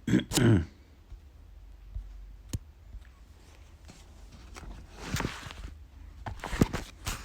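A person's brief vocal sound just after the start, then a few faint clicks and short rustling noises.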